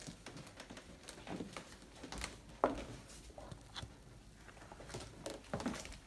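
Light scattered knocks and scrapes of loaf pans being lifted off a wire oven rack with silicone oven mitts and set down on a countertop, the sharpest knock a little under three seconds in.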